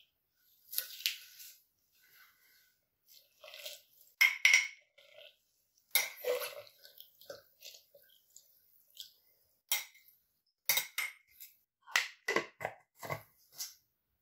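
A utensil clinking and knocking against a large glass jar while stirring and pushing lilac flowers down into syrup, in irregular single strikes with short quiet gaps between. A quicker run of knocks comes near the end.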